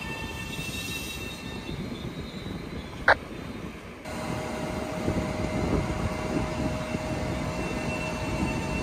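Metro-North electric commuter train moving slowly along the track: a steady electric hum with wheel and rail rumble, and one sharp, loud clank about three seconds in.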